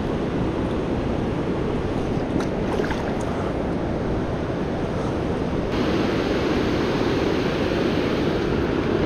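Steady rush of river water pouring over a low-head dam, with a few faint splashes about two to three seconds in. About six seconds in, the rush abruptly turns louder and brighter.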